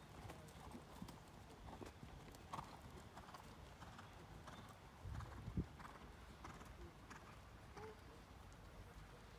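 Faint, regular hoofbeats of a horse moving over an all-weather arena surface. About five seconds in there is a brief low rumble ending in a thump.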